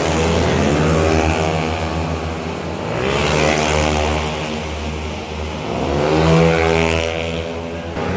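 Tuned 130cc automatic scooter engines racing, revving hard with rising pitch as they accelerate. The sound swells three times as the scooters pass.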